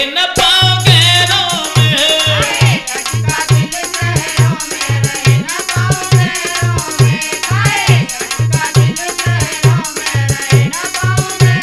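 Hindi folk song music with fast, steady percussion, about four strokes a second with heavier low drum beats, under a melody line.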